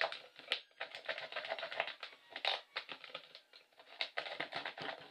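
X-Acto knife cutting through a thin plastic yogurt container, a run of irregular small clicks and scratches as the blade works around it.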